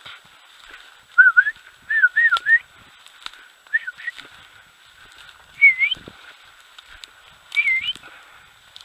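A person whistling to call a dog: four short warbling whistle phrases that dip and rise in pitch, the first a run of several notes.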